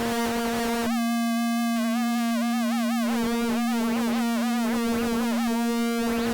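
Phase Plant wavetable synthesizer patch playing a sustained tone with a steady low pitch, its upper partials warbling and shifting unpredictably under random LFO modulation; about a second in, the tone briefly turns brighter.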